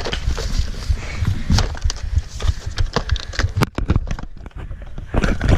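Quick, irregular thumps and sharp clicks of running footsteps and knocks on a body-worn GoPro camera.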